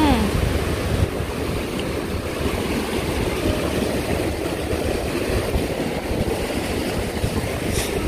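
Rushing water tumbling over rocks in a shallow river rapid, a steady rush, with wind buffeting the microphone.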